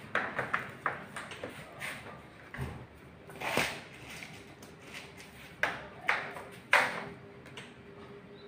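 Irregular knocks, taps and clatter of PVC door-frame profiles and a hand-held power drill being handled and set against each other, with a few louder knocks.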